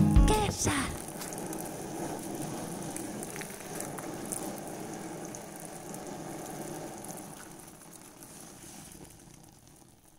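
Water spattering on a fabric umbrella canopy, a steady patter that fades out near the end. The last chord of a song dies away in the first second.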